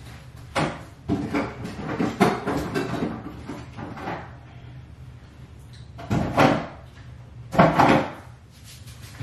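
Cupboard doors and drawers opening and closing, with knocks and clatter as things are put away: a busy run of bangs in the first few seconds, then two sharper knocks near the end.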